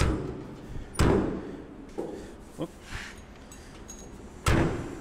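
Steel trunk lid of a 1967 Camaro being shut and handled: a string of thuds and knocks, the loudest about a second in and another near the end.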